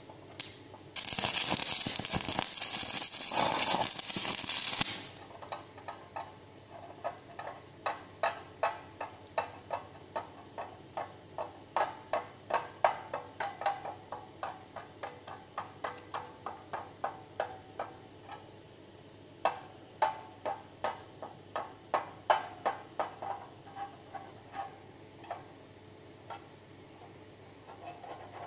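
Stick-welding arc on aluminium crackling for about four seconds, then cutting off. A long run of sharp, slightly ringing taps follows, about two a second, some louder than others.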